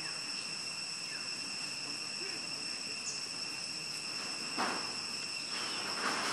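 Steady high-pitched chorus of insects, several held tones sounding together. About four and a half seconds in, a hissing rush briefly joins, and it comes back louder near the end.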